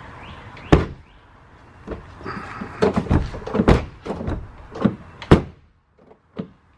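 A run of clunks and knocks, about eight over five seconds, with a short sliding rattle between them: a pickup's retractable bed cover being pulled shut over the bed.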